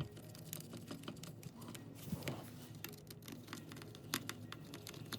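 Light, scattered clicks and scrapes of a screw being turned by hand into a GPS mount on a drone frame.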